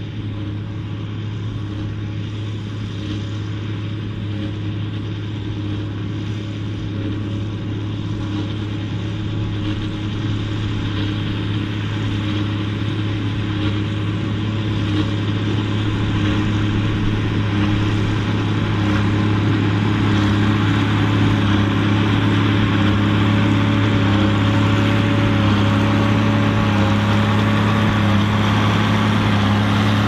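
Ford TW-30 tractor's turbocharged six-cylinder diesel running steadily under load, pulling a New Holland 4860S big square baler, with a deep hum that grows steadily louder as the tractor comes closer.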